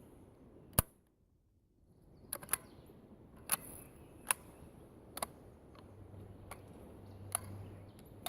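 A single sharp rifle shot from a Mini-14 firing cast-bullet .223 Remington loads, then a string of lighter irregular clicks and clacks. These fit the action being worked by hand, because the light loads do not cycle the rifle.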